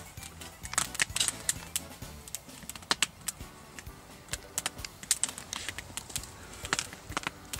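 Irregular sharp metallic clicks and ticks as a red-hot layered Damascus billet is twisted in a bench vise with a square-tube twisting wrench. The loudest come about a second in, three seconds in and near the end.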